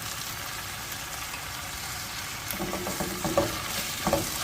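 Onions and chopped tomatoes sizzling in hot oil in a kadai, with a steady hiss. From about halfway a spatula scrapes and knocks against the pan in short strokes as the mixture is stirred.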